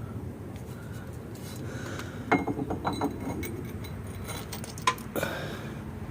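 Sharp metallic clinks of steel parts and tools knocking together during hand work on steering parts: a quick cluster of clinks a little over two seconds in, then two single clicks near the end.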